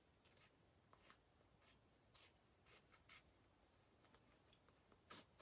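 Faint snips of kitchen scissors cutting decoupage paper, short strokes about every half second, then a pause and one louder snip near the end.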